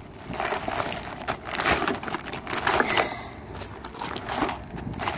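Plastic packaging and a glossy reusable shopping bag crinkling and rustling as groceries are handled, in a run of irregular crackles and scrapes.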